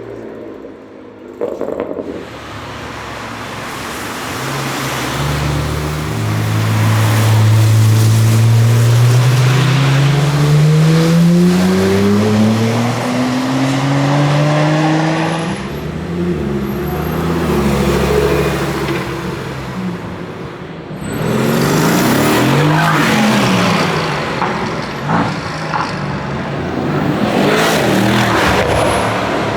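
Loud performance car exhaust. An engine accelerates with its pitch rising steadily for several seconds, then cars pass by, their engine notes rising and falling as they go.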